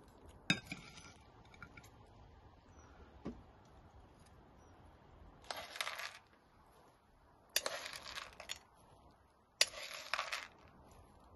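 A metal spoon scraping and clinking against a small metal bowl in three short bursts, a couple of seconds apart. A single sharp metal clink comes about half a second in.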